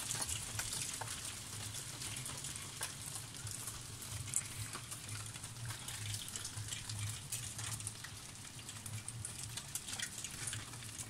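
Small hail falling, an even crackling patter with many scattered sharper ticks of pellets striking surfaces; one louder tick about four seconds in.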